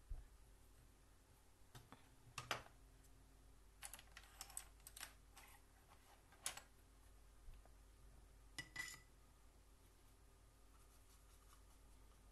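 Faint, scattered clicks and taps of small objects handled on a desk: a loud single tap about two and a half seconds in, a quick run of clicks around four to five seconds, and a few more spaced out after that, against near-silent room tone.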